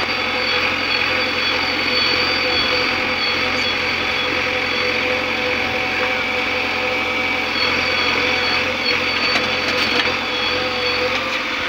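Soil pouring from a JCB 3DX backhoe loader's bucket into a steel tractor trolley over the steady running of diesel machinery, with a high whine held throughout.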